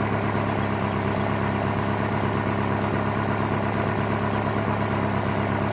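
2001 Honda Prelude's four-cylinder engine idling steadily while it has a logged cylinder 2 misfire and random misfires; the owner thinks worn piston rings may be the cause.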